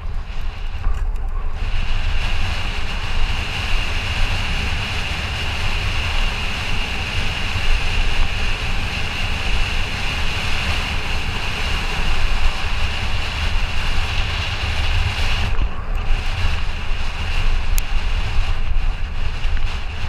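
Wind buffeting a helmet-mounted camera's microphone while mountain bike tyres roll fast over a dirt fire road, with a high steady hiss that cuts out briefly past the middle.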